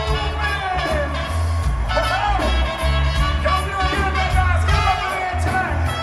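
Live reggae band music: a sung vocal line over a heavy, pulsing bass line and the full band.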